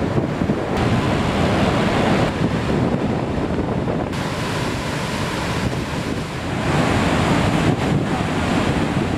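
Steady roar of Niagara's Horseshoe Falls, a dense rushing of falling water, with wind buffeting the microphone.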